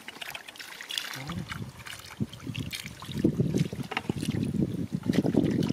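Muddy shallow water splashing and sloshing as hands scoop and stir through it, starting about a second in and getting louder in the second half.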